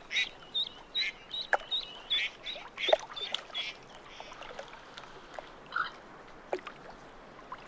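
A small bird singing a quick run of short, repeated chirping notes for about three and a half seconds, with a few clicks among them, then only faint scattered calls.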